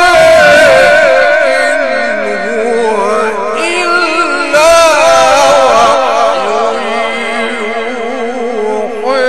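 A male Quran reciter's voice in ornate, melodic tajweed style, drawing out long notes whose pitch wavers up and down without a break.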